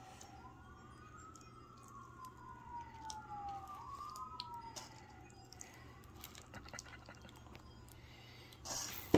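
Faint emergency-vehicle siren wailing, slowly rising and falling in pitch with two overlapping tones, fading out about halfway through. Scattered faint clicks throughout, and a brief rustling burst ending in a sharp click near the end.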